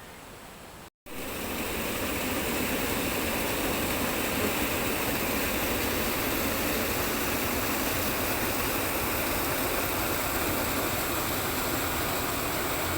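Steady rush of running water, an even hiss that starts suddenly about a second in and holds without change.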